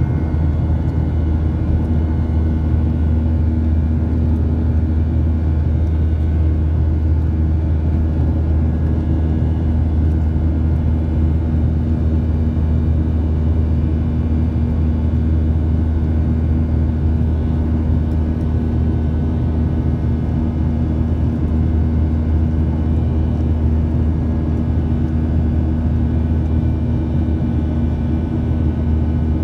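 Boeing 737 jet engines heard from inside the passenger cabin during the climb after takeoff: a steady, loud, deep drone with a steady hum tone above it.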